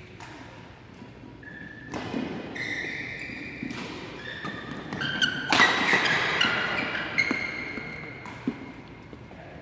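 Badminton rally in a large hall: rackets hitting the shuttlecock and shoes squeaking on the court mat, loudest and busiest in the middle, then tapering off as the rally ends.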